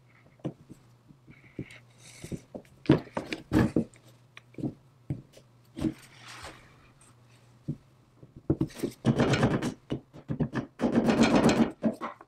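Small metal parts of a cast-iron belt lacer clicking and knocking as they are fitted together by hand, a steel pin set into the lever. From about two-thirds of the way through comes a denser stretch of metal rubbing and scraping as the lever is worked onto its shaft.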